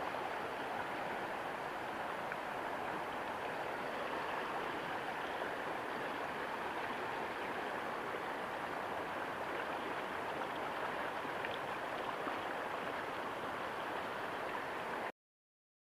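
Fast river current rushing steadily. It cuts off suddenly near the end.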